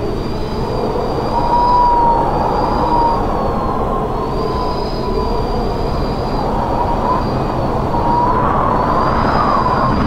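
Strong wind rushing over the microphone of a moving bicycle, a constant low rumble with a thin, slightly wavering whistle running through it.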